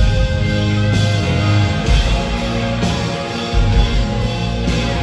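Live rock band playing an instrumental passage: electric guitars, bass and drum kit, with held bass notes that change every second or so.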